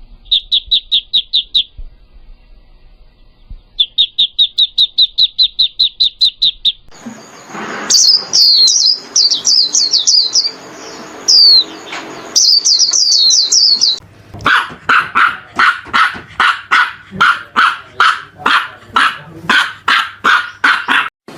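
A sequence of animal calls. Two bursts of rapid, evenly pulsed high chirping come first. Sweeping bird-like chirps over background noise follow, then a fast run of short yapping calls about three a second.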